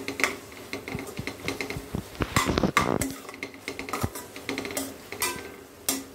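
Metal spatula scraping and clacking against a non-stick kadai while stirring a tomato, chilli and garlic masala, in irregular strokes that are busiest around the middle. The masala is being sautéed until the raw smell of the ginger-garlic paste cooks off.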